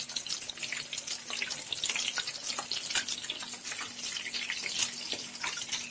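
Bread slice soaked in milk and egg frying in hot oil in a pan: a steady sizzle with many small crackling pops.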